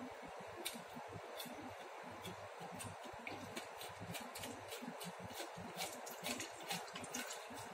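Faint scattered clicks and knocks of hard plastic as a toy water gun's bottle tank is handled and fitted onto the gun, over a steady hiss; the clicks come more often in the second half.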